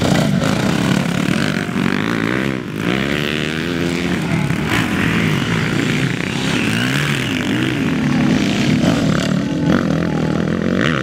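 Several motocross bikes riding past close by, their engines revving hard as the riders accelerate away. The pitches of several engines overlap, rising and falling as they go.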